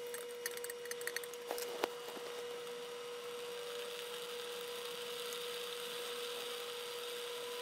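Diced tomatoes, garlic and onion sizzling steadily in the stainless inner pot of a Mealthy Multipot electric pressure cooker, with a few clicks of a plastic spatula against the pot in the first two seconds. A steady faint hum runs underneath.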